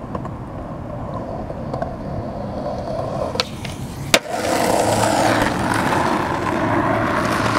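Skateboard wheels rolling on asphalt, growing louder as the board approaches, then the sharp pop of an ollie about three and a half seconds in and a loud crack of the landing just after four seconds, followed by louder rolling.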